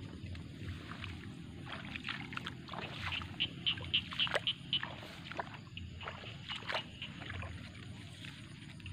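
Scuffing footsteps on a muddy field bund and leaves brushing past, with handling noise on a handheld phone's microphone. A quick run of short high-pitched chirps comes about three seconds in.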